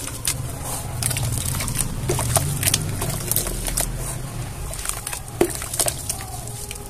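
Hands squishing and sloshing through wet cement slurry in a metal bowl: irregular wet squelches and sharp little clicks as the soft, soaked cement is squeezed.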